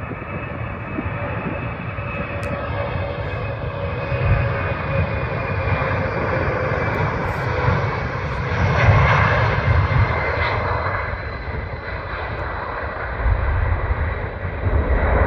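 Boeing C-17 Globemaster III's four F117 turbofan engines at takeoff thrust: a loud, continuous jet roar with a steady whine, growing louder and loudest about nine seconds in as the aircraft rolls past.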